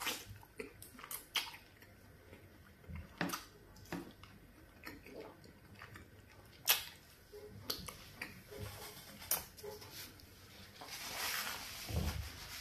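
Close-up mouth sounds of fufu with garden egg soup being eaten by hand: scattered wet smacks and clicks of lips and chewing. Near the end, a short rustling swish of a paper tissue wiping the face.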